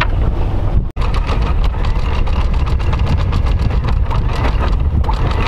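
Catamaran's engine running at a steady low drone while the anchor is raised, with a fast run of clicks over it. The sound cuts out for a moment about a second in.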